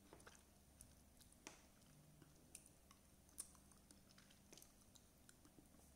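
Faint mouth sounds of a person chewing grapes: soft, irregular clicks and smacks.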